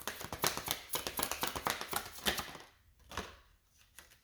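Tarot cards being handled and shuffled: a fast run of crisp card clicks and flicks that stops about two and a half seconds in, followed by a few soft taps.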